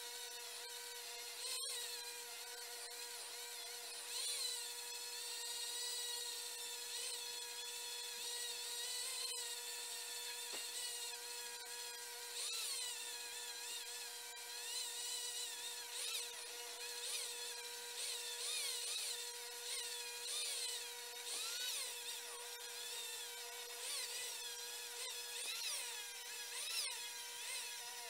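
Flex-shaft rotary tool running with a steady high whine, its grinding bit porting a motorcycle cylinder head, the higher pitches wavering as the bit bites into the metal and eases off.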